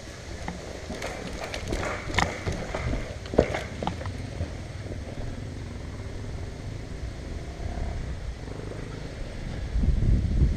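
Footsteps crunching through leaves and twigs with brush rustling, a few sharper snaps in the first few seconds, and wind rumbling on the microphone near the end.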